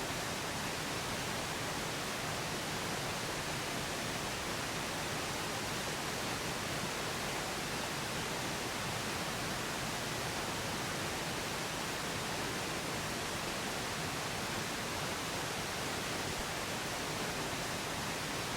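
Steady pink noise: an even hiss that does not change.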